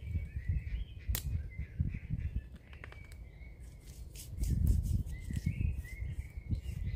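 A bird calling over and over in short, slightly rising notes. Under it is a low rumble of movement and handling noise, loudest a little past halfway, and there is a single click about a second in.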